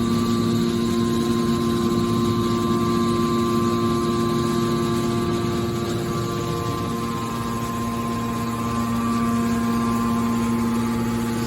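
Hydraulic can baler's motor and pump running, a steady hum with a constant whine over it that dips slightly partway through.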